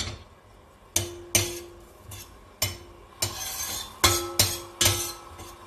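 Metal spatula clanking against a stainless steel frying pan while garlic is stirred. There are about eight sharp, irregular strikes, each with a brief metallic ring.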